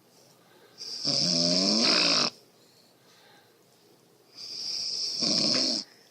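A woman snoring in her sleep: two long snores about three seconds apart, each about a second and a half long, a pitched buzz over a breathy hiss.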